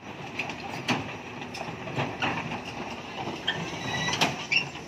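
Steel crawler tracks of a Cat 320D excavator clanking irregularly as the machine travels, with a brief high metallic squeal about three and a half seconds in.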